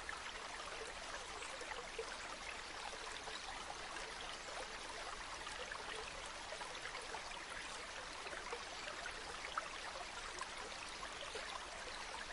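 Mountain waterfall pouring steadily, an even rush of falling water full of fine splashes.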